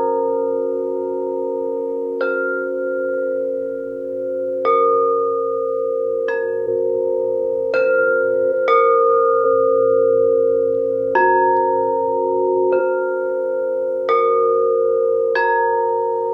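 Quartz crystal singing bowls of several pitches struck one after another, about nine strikes, each adding a new bright ringing tone over the steady, sustained ringing of the other bowls.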